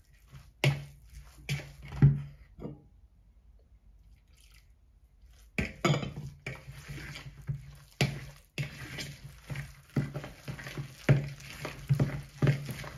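A spoon stirring and slapping a wet mixture of shredded zucchini and flour in a plastic mixing bowl, in repeated squelching strokes. The strokes pause for about three seconds a few seconds in, then pick up again.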